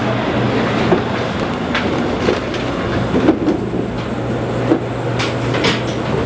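Refrigeration unit of a fish dry-ageing cold room running: a steady electric hum with an even rush of blowing air, broken by scattered short knocks and clicks.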